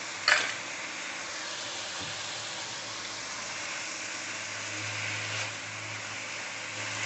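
Chicken pieces in sauce sizzling steadily in a hot non-stick wok while a silicone spatula stirs them, with one sharp clack of the spatula against the wok a moment in.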